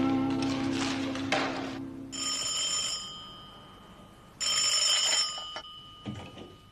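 Telephone bell ringing twice, each ring just under a second, as held music notes fade out at the start.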